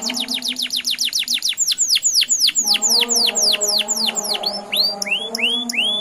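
Domestic canary singing a long roll: a fast trill of repeated downward-sweeping notes, about ten a second, that slows over the first few seconds and turns into a few slower rising notes near the end.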